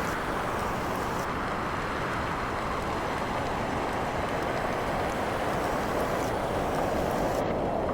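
Steady rushing road and tyre noise of a vehicle driving, even and unbroken.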